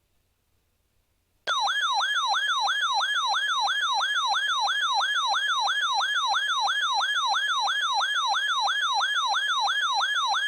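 Electronic yelp siren tone that starts suddenly about a second and a half in and sweeps up and down about three times a second. It is an alert sound announcing the next severe thunderstorm warning.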